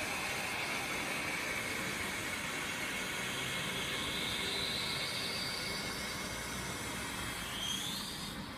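Steady outdoor town background noise, a low rumble with hiss, under a faint high whine that slowly rises in pitch and climbs more quickly near the end.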